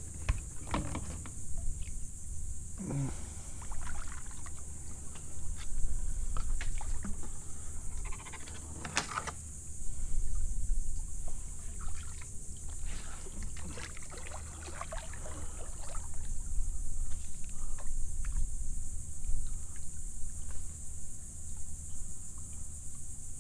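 Kayak being paddled through shallow water: irregular paddle splashes and drips, with hollow knocks of the paddle and gear against the plastic hull. A steady high insect buzz runs underneath.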